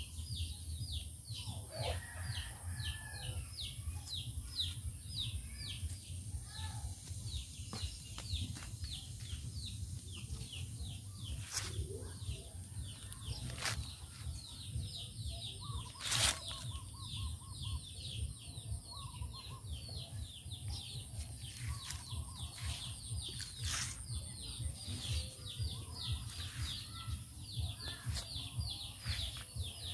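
Birds chirping rapidly and without pause, over a steady low rumble, with a few sharp clicks around the middle.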